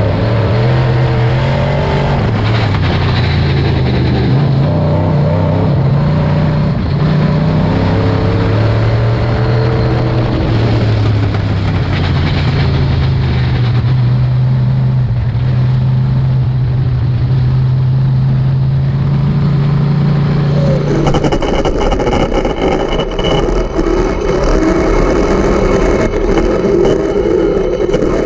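Race car engine running hard, its pitch rising and falling with the throttle. About 21 seconds in the sound turns harsher and noisier, with a high steady whine.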